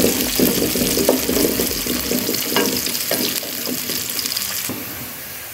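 Freshly sliced onions sizzling in hot oil at the start of browning, stirred with a wooden spatula that scrapes and knocks against an aluminium pot in irregular strokes. The stirring eases off near the end.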